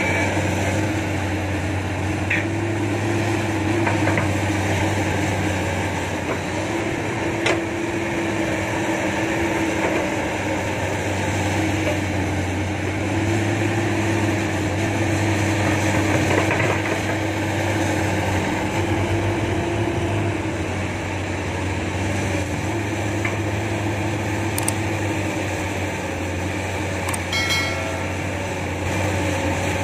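Komatsu hydraulic excavator's diesel engine running steadily while it digs and loads soil into a dump truck, with a few short knocks.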